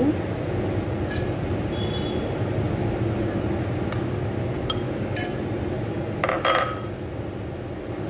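A steel spoon clinking against a glass mixing bowl and a white serving bowl as sliced potatoes are scraped in. A few separate clinks, then a quick clatter of several about six seconds in, over a steady low hum.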